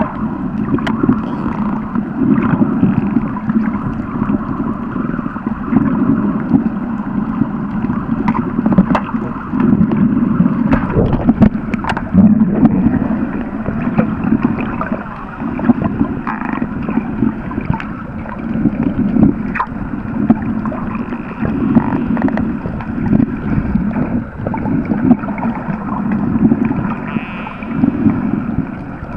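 Underwater water noise picked up by a moving camera: a continuous churning rush that swells every second or two, with scattered sharp clicks.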